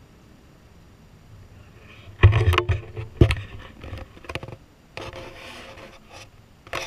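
Handling noise from a body-worn action camera being moved and turned: two heavy knocks about two and three seconds in, then rubbing and scraping with scattered clicks, and another knock near the end.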